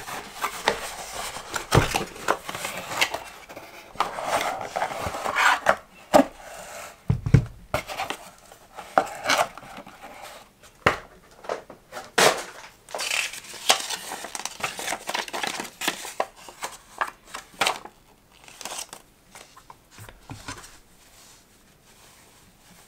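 Unboxing handling sounds: packaging and paper rustling and crinkling, with frequent clicks and a few duller knocks as parts of a folding laptop stand are handled and set on a table. The handling thins out and grows quieter about eighteen seconds in.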